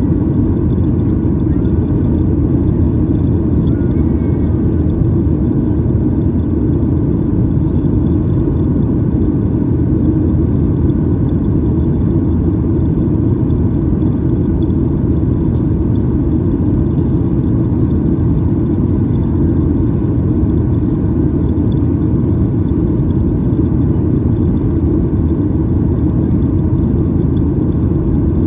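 Steady cabin roar inside a Boeing 737-800 climbing after takeoff: the CFM56-7B turbofan engines and the rush of air over the fuselage, heavy and low-pitched, with a faint steady high whine above it.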